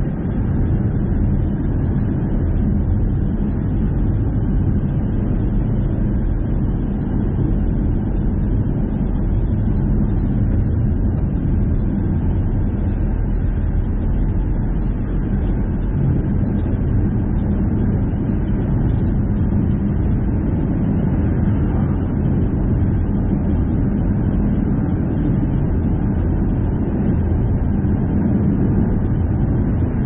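Car driving at steady speed: a constant low rumble of tyres and engine with no changes.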